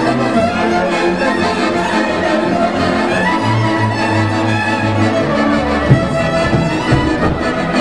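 Transylvanian folk band playing a dance tune: several fiddles bowing the melody over accordion, contra and a plucked-sounding double bass line. A sharp knock cuts through about six seconds in, with a smaller one a second later.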